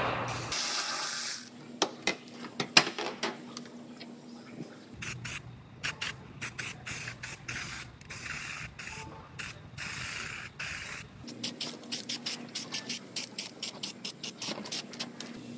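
Aerosol can of weld-through primer spraying in many short hissing spurts, with a few sharp clicks about two to three seconds in.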